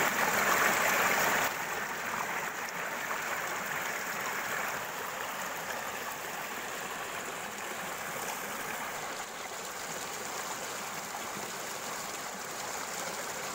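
Water of a shallow rocky stream rushing and splashing over and between boulders: a steady rushing, louder for about the first second and a half, then a little softer.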